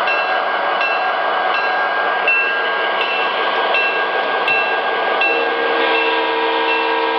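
Model diesel locomotive sound from MTH Premier O-gauge engines' ProtoSound 2.0 speakers: a steady engine rumble with a bell ringing about once every three-quarters of a second. About five seconds in, a multi-note horn chord starts and holds.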